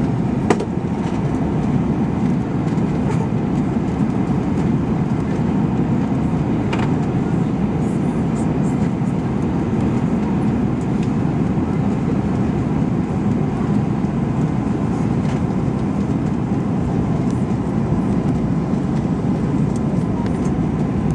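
Steady cabin noise of an Airbus A321-231 in flight: the even rush of airflow and its IAE V2500 engines heard from a window seat, with a faint steady tone and a couple of brief clicks.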